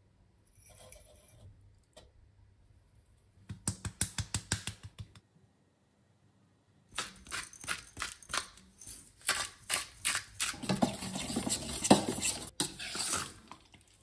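Hand spice grinder being twisted over a mixing bowl: quick runs of dry clicks, a short burst a few seconds in and a longer, louder stretch from about halfway. Near the end, a spoon clinks and scrapes in the bowl as the marinade is stirred.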